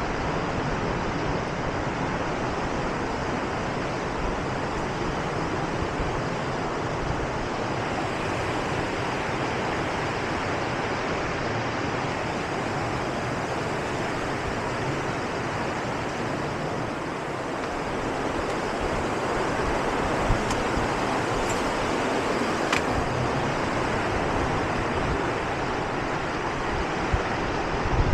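Steady, even rushing noise that holds at the same level throughout, with no breaks.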